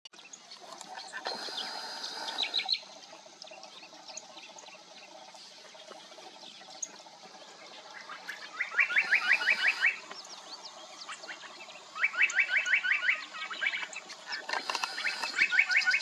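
An animal's rapid trill, about ten notes a second, comes in three bursts of one to two seconds each in the second half. A shorter, higher trill sounds about two seconds in, over a faint steady outdoor background.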